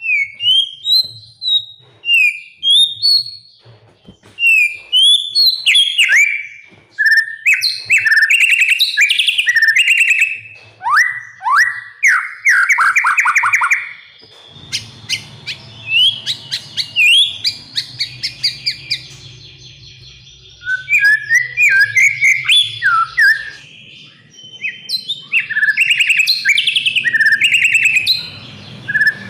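White-rumped shama (murai batu) singing a long, varied song: clear whistled notes that slide down in pitch, then dense runs of fast trills and rattles, with brief pauses between phrases.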